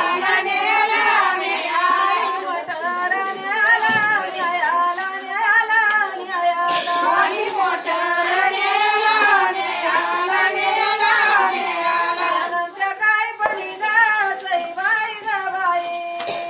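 Women singing unaccompanied in a gliding, ornamented folk melody: a traditional Marathi jatyavarchi ovi (grindstone song) sung as a wedding song.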